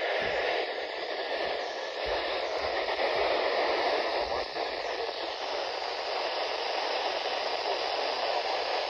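Radio receiver giving out a steady hiss of static, with no voice coming through.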